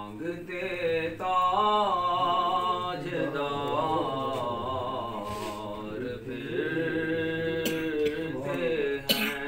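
A man's unaccompanied devotional chanting, long held notes that waver and bend in pitch, with a short knock near the end.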